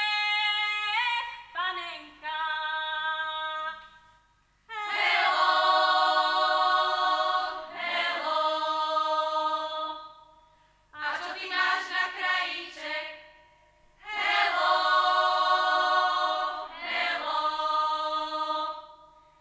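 A group of women singing a Slovak folk song a cappella, in several phrases a few seconds long with short breaks between them.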